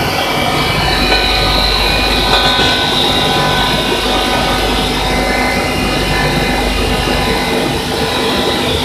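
QY-100 copper wire granulator running steadily: a continuous machine drone with many fixed tones and a high hiss, while it turns out separated copper granules.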